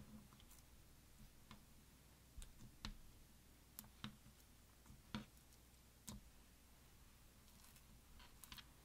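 Faint, scattered clicks and small pops from clear slime with beads mixed in as it is folded and pressed by hand, about a dozen at irregular intervals, the loudest about five seconds in.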